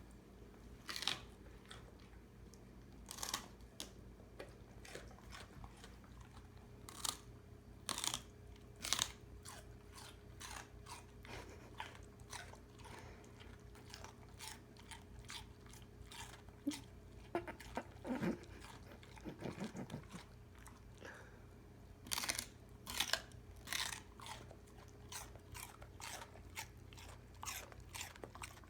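Celery being bitten and chewed: repeated sharp, crisp crunches at an irregular pace, some coming in quick runs, over a faint steady hum.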